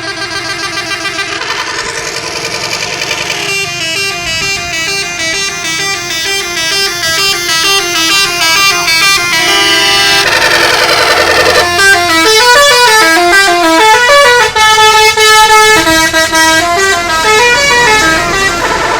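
A bus's telolet 'piano' horn, a multi-tone horn played from a keyboard, is playing a loud melody. It opens with a held chord, then runs quickly through stepped notes, with a sliding sweep about ten seconds in.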